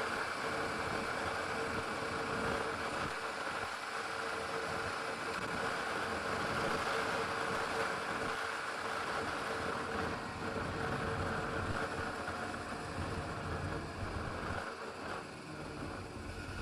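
Motorcycle running on the move, with wind noise on the microphone. The sound takes on more low rumble in the last few seconds.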